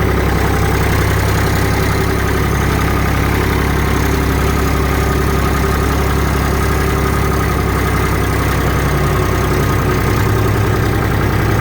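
Massey Ferguson 263 tractor's turbocharged Perkins diesel engine idling steadily while it warms up.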